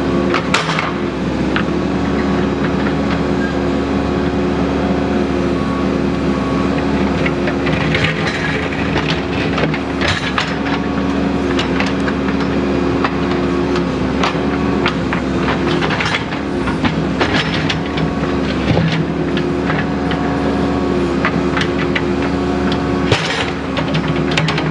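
Backhoe engine running steadily under work, with repeated clanks, knocks and scraping as the bucket digs through gravel and rock.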